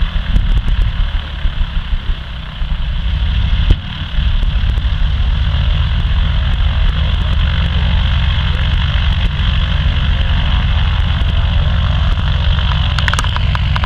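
Antonov An-2's nine-cylinder radial piston engine just after start. It runs unevenly for the first few seconds, sputtering as it clears, with a sharp bang a little under four seconds in, then settles into steady running.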